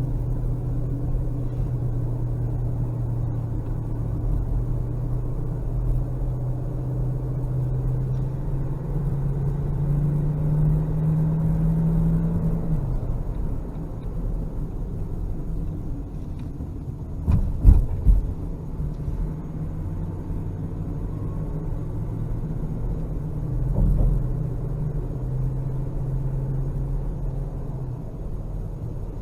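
A motor running with a steady low drone whose pitch shifts a little, with a few knocks about two-thirds of the way through and one more near the end.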